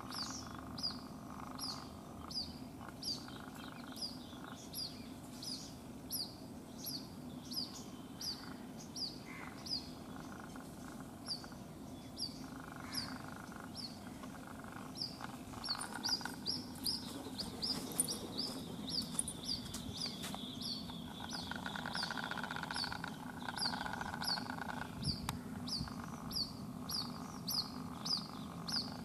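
White-breasted waterhen chick calling non-stop: a short, high, falling peep repeated steadily about twice a second.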